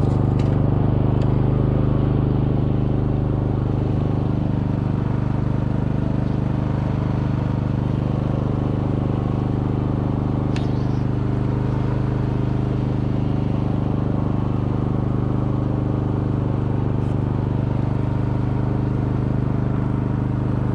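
Small engine on a bowfishing boat running steadily, a constant low hum that holds one pitch throughout.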